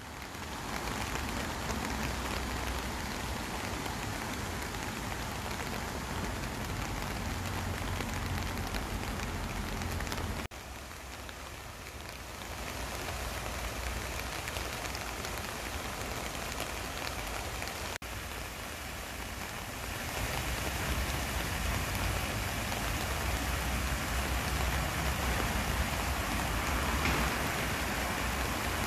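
Steady rain falling on leaves and ground, mixed with a shallow stream running over rocks. The sound breaks off abruptly twice, about ten and eighteen seconds in, and is louder from about twenty seconds on.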